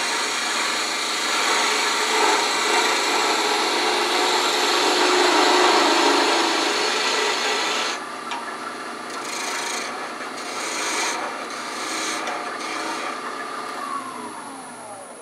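A gouge cutting a wooden screwdriver handle spinning on a wood lathe: a continuous shaving hiss for about eight seconds, then lighter, broken cuts. Near the end a tone falls in pitch as the lathe spins down.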